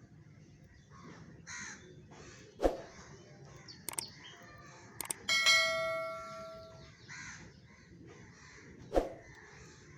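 Birds calling in short, harsh calls, among them sparrows feeding. Sharp knocks come twice, and about five seconds in a metallic clang rings out and fades over a second or so. The clang is the loudest sound.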